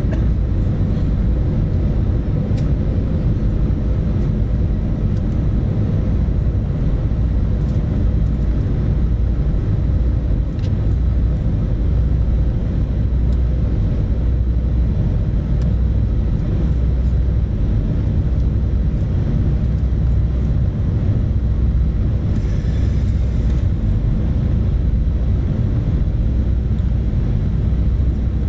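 Steady cabin noise of an Airbus A320 airliner in flight: the low rumble of the engines and rushing air, heard from inside the cabin, with a faint steady hum.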